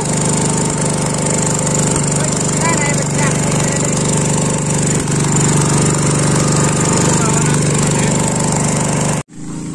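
Small petrol engine of a portable water pump running steadily at a constant speed. The sound cuts off abruptly near the end.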